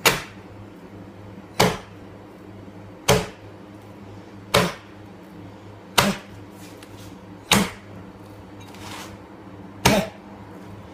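Butcher's axe chopping bone-in pork into chops on a cardboard-covered table: seven heavy chops about one and a half seconds apart, with a longer pause before the last. A steady low hum runs underneath.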